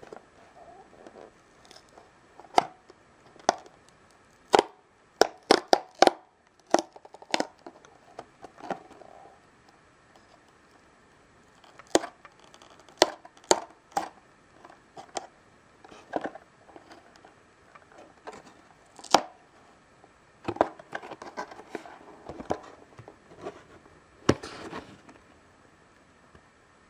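Small thin-cardboard toy box being torn open along its zigzag perforated tear strip and its flap pulled open: irregular sharp clicks and snaps of card, with a few short stretches of tearing and rustling near the end.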